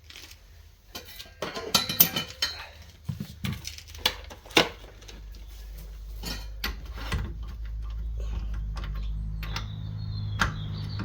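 Metal tools and parts knocking and clicking against each other in quick irregular strikes, loudest about two seconds and four and a half seconds in, then thinning out as a steady low hum builds up under a few more clicks.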